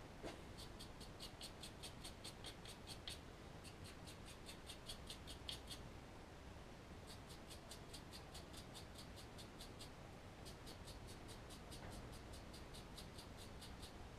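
A wire brush scrubbed back and forth over a spark plug, faint quick scratching strokes about five a second, in four spells with short pauses between them, cleaning the plug before a spark test.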